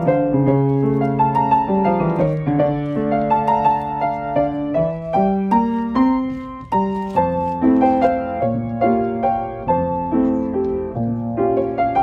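Background piano music, with notes and chords changing every fraction of a second.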